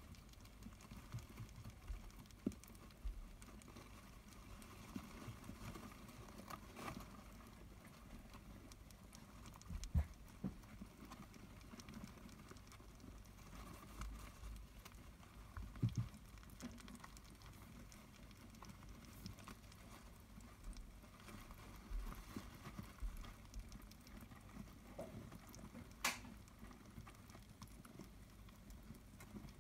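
Faint rustling and small clicking of dwarf hamster pups scrabbling in wood-shaving and paper bedding and eating from their food bowls, with a few soft knocks and one sharper click near the end.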